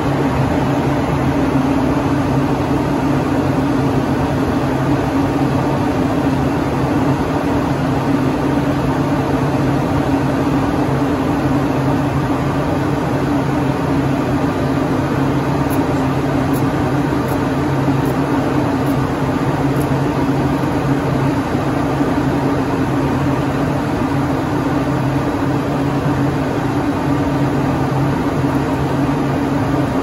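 Steady cockpit noise of an Embraer ERJ-145LR regional jet in flight: a constant rush of air with a low, even hum underneath.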